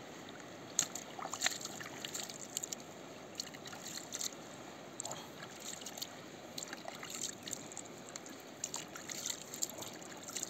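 Water splashing and trickling in many small, irregular splashes as a golden dorado is rinsed in shallow river water and lifted out, over the steady rush of the river.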